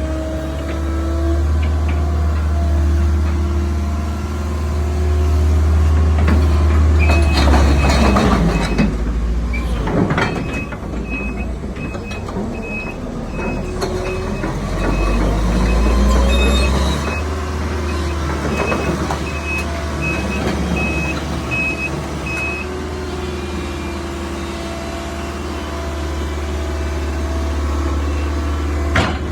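Case CX160 hydraulic excavator's diesel engine running, with the engine note rising and falling under hydraulic load and a few metallic clanks. A high-pitched warning alarm beeps repeatedly from about a quarter of the way in until about three quarters through.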